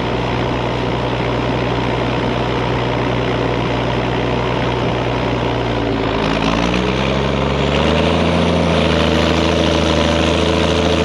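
Ford TW25's turbocharged six-cylinder diesel engine running steadily, then revving up from about six seconds in and holding at higher revs as it takes the load of the flatlift, blowing black smoke from the stack. A faint high whine rises as the turbo spools.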